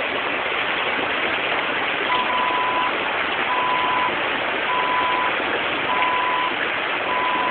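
Rushing river water, with a Jeep's dashboard warning chime beeping five times, about once a second, starting about two seconds in, while the key sits in the ignition of the stalled Jeep.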